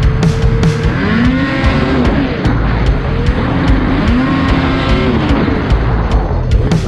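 Ski-Doo Renegade 850 two-stroke snowmobile engine revving hard through deep powder, its pitch rising and falling again and again as the throttle is worked.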